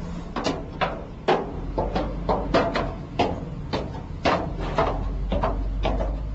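Footsteps of two men climbing an outdoor staircase: a steady run of hard treads, about two a second.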